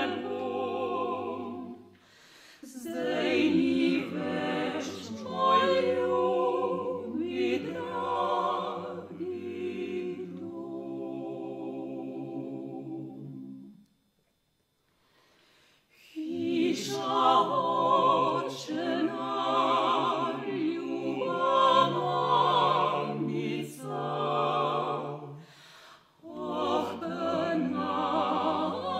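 Vocal quartet of three women and a man singing a classical piece in harmony, without accompaniment. About eleven seconds in, a phrase ends on a long held chord that stops, followed by a silence of about two seconds, and the singing then starts again.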